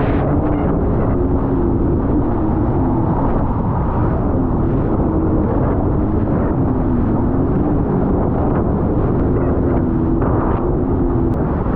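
Jet ski engine running steadily at speed, its pitch wavering a little, with wind buffeting the microphone.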